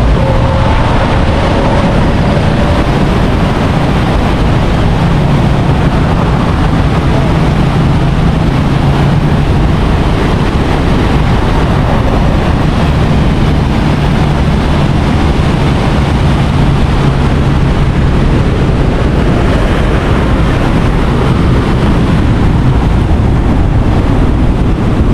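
Steady rushing of the swollen, muddy Ruiru River pouring over rocks and a small fall. A low engine hum from a passing vehicle comes through in the middle.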